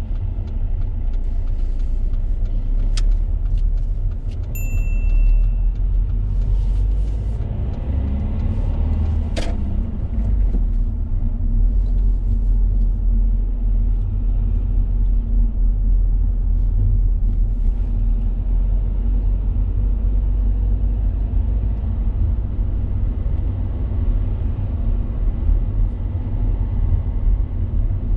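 Road and engine noise inside a moving car's cabin: a steady low rumble. Two sharp clicks, one about three seconds in and one near ten seconds, and a short beep between them.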